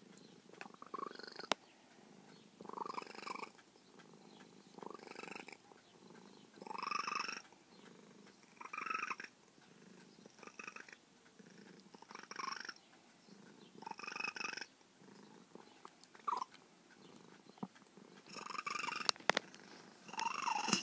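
Elderly cat purring while being petted, the purr swelling with each breath about every two seconds. A few sharp clicks.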